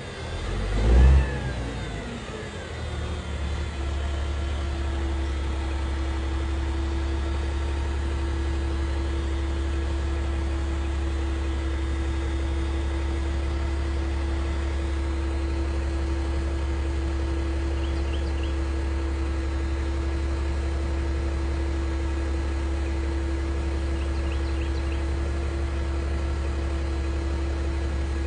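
A heavy machine's engine running at a steady speed with an even drone, after a loud low thump about a second in.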